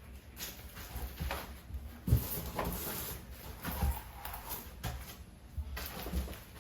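A series of irregular knocks and thuds, roughly one every second, the loudest about two seconds in.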